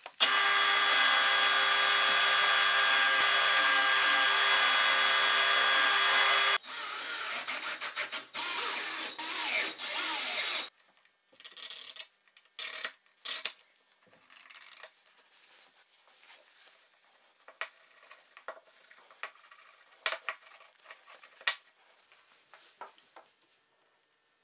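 A bench-mounted power tool runs at a steady pitch for about six seconds, then sounds in several shorter bursts over the next four seconds. After that come light clicks and taps of small wooden and plastic parts being handled on the bench.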